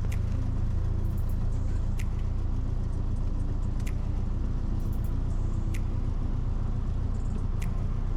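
Cessna 172's piston engine and propeller running steadily, a low even drone, with a faint sharp click about every two seconds.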